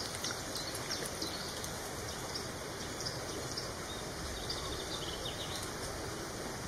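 Outdoor ambience: a steady background hiss with faint, scattered songbird chirps.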